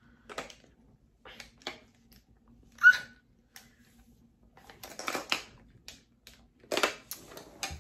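Scattered clicks and rattles of a clear plastic bag's push-button clasp being pressed and worked by hand as it fails to open, with one louder short sound about three seconds in.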